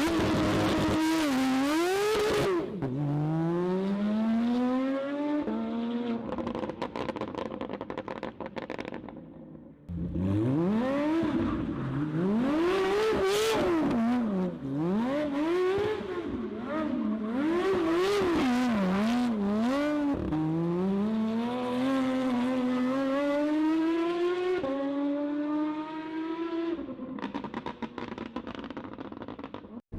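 Modified Porsche 911 GT3's flat-six engine accelerating hard through the gears, its pitch climbing and dropping sharply at each upshift. It eases off briefly about ten seconds in, then revs up and down repeatedly before pulling through several more gears, going quieter near the end.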